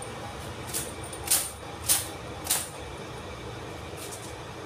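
Long wet hair being flung and flicked through the air to dry it: four quick swishes about half a second apart, over a steady low hum.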